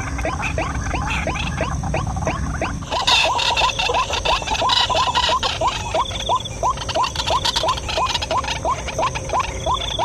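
White-breasted waterhen calls: a short rising note repeated quickly and evenly, about three times a second, without a break.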